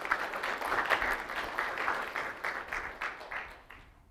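Audience applauding at the end of a lecture, the clapping thinning out and fading away near the end.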